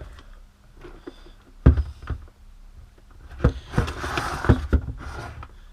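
Cardboard product box being handled: a couple of sharp knocks, then a few seconds of scraping and rustling as it is turned and slid about.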